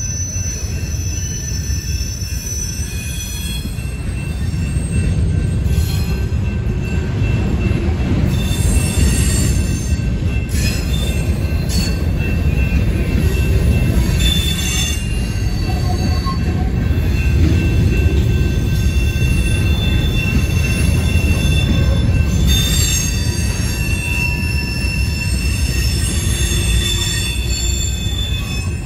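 Union Pacific covered hopper cars rolling past close by: a steady heavy rumble of steel wheels on rail, with high-pitched wheel squeal whining over it, swelling and fading several times, and a few clanks.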